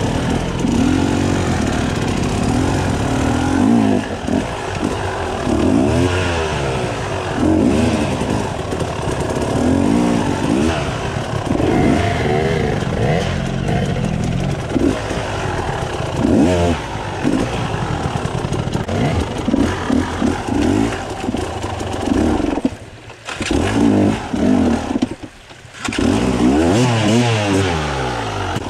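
KTM enduro motorcycle engine revved up and down in repeated short bursts of throttle, the pitch climbing and falling again and again. Near the end the engine sound drops away briefly, twice.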